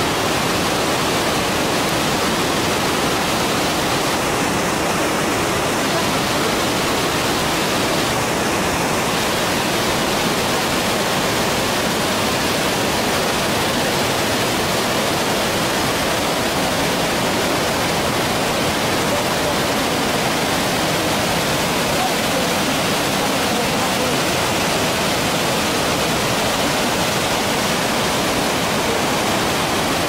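Cascade waterfall rushing over stepped rock slabs: a steady, even rush of white water that does not change.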